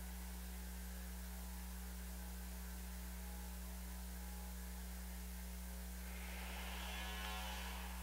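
Steady low electrical mains hum with faint hiss; a soft hissing noise swells slightly near the end.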